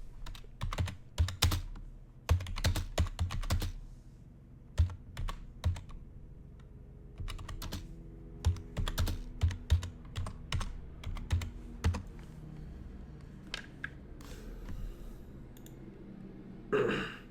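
Typing on a computer keyboard: quick runs of keystrokes, then a pause and another run, with a few single clicks after.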